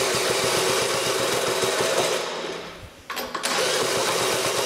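Cordless drill cranking a small petrol engine over by its crank nut, turning a stiff chain-driven Ford AC compressor with it: a fast, even pulsing run that dies away a little over two seconds in, then starts again after a click about a second later.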